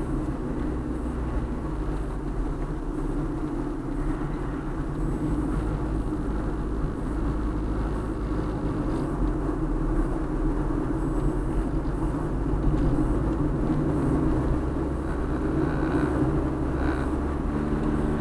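Steady road noise inside a moving car: a low drone from the tyres and engine at highway speed, getting a little louder in the second half.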